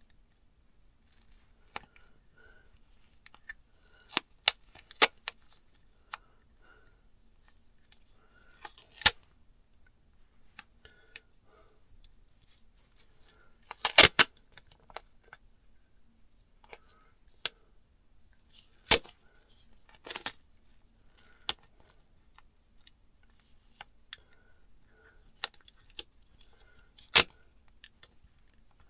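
Duct tape being pulled off the roll and torn in short rips at irregular intervals, with clicks and rustles from handling it. The tape is going on as a makeshift patch over a cracked engine crankcase.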